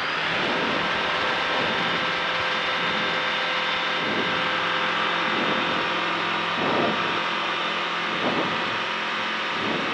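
Skyranger Swift 2 microlight's engine and propeller at full take-off power during the take-off run, a steady drone with many held tones that comes up to full level right at the start.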